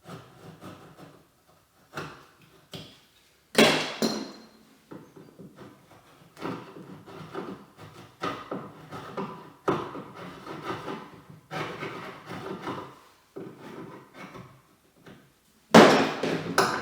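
Irregular hammer knocks and scraping on wood, with two much louder strikes, one about three and a half seconds in and one near the end, as a hinge mortise is cut in a wooden door jamb.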